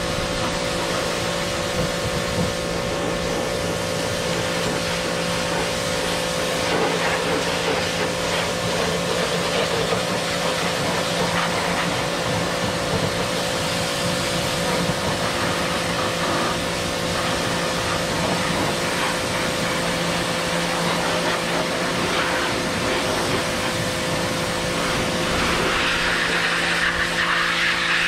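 Electric pressure washer running steadily, its water jet hissing as it sprays the metal body and deck of a stand-on mower. Near the end the spray hiss grows brighter and a little louder as the jet is aimed low at the deck and the wet pavement.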